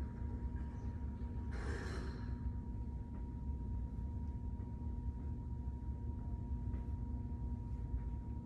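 A single breathy exhale, about half a second long, a little under two seconds in, from a man working through chest-expansion arm swings. Under it runs a steady low background rumble with a faint steady hum.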